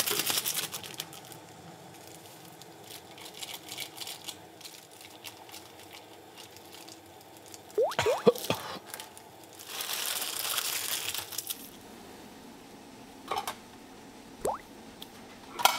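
Instant ramyeon packets and seasoning sachets crinkling and tearing as they are opened at the stove, with a few quick rising squeaks about eight seconds in and sharp clicks near the end.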